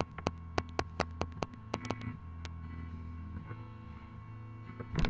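A run of quick, irregular clicks at a computer, about four or five a second, stopping about two and a half seconds in. A low steady hum runs underneath.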